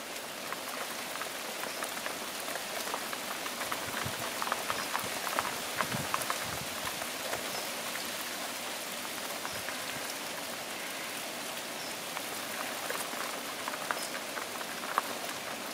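Steady rain: an even hiss with many single drops ticking close by, a few louder ones about four to six seconds in and again near the end.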